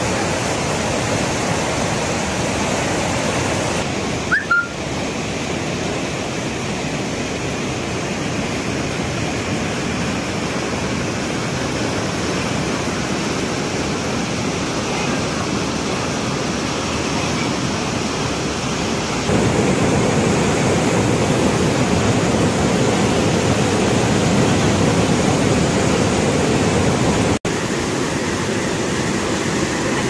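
The Penna River in high flood, its water rushing in a loud, steady roar. The roar gets louder about two-thirds of the way through and drops out for an instant near the end.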